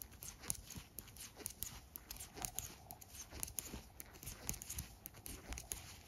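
Faint, irregular small clicks and rustles of knitting needles and yarn as stitches are purled, a couple of clicks a second.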